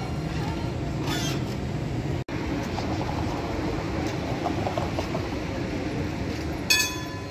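Low-floor RET trams running on street track: a steady low rumble as one passes close, then another rolls in. A brief high squeal sounds about a second in, and a short, sharp high-pitched tone comes near the end.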